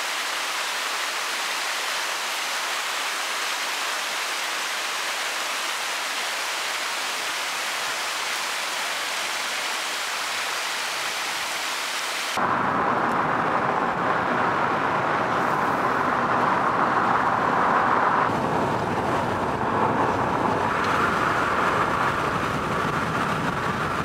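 Water rushing down a rocky cascade at the top of a waterfall, a steady hiss. About twelve seconds in it cuts to the steady rumble and wind rush of a moving car with a window open.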